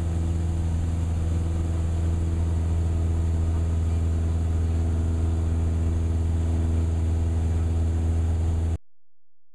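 Cessna 172's piston engine and propeller running steadily with a deep, even drone, then cutting off abruptly near the end.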